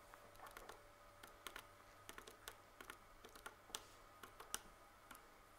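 Faint, irregular clicks of a Casio scientific calculator's keys being pressed one after another, about a dozen in all, the loudest a little past the middle.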